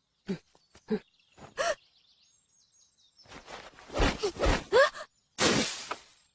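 Short wordless vocal sounds, gasps and sighs, then more voice-like sounds with sliding pitch, ending in a loud burst of noise lasting under a second near the end.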